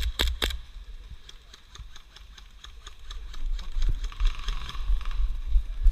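Airsoft gun shots: a few sharp cracks right at the start, then a run of quick, fainter clicks, over a steady low rumble.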